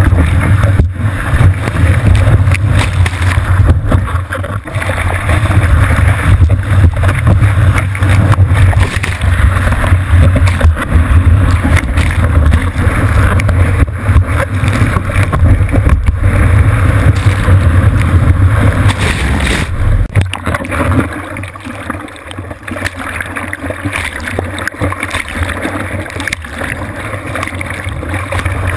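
Whitewater rushing and splashing over a surfboard-mounted GoPro, with wind buffeting the camera's microphone, as the board rides through broken surf. The heavy low rush eases about twenty seconds in as the water around the board calms.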